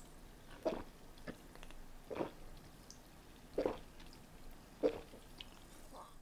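A person chewing food with soft, wet mouth sounds, about one chew every second and a half, five in all.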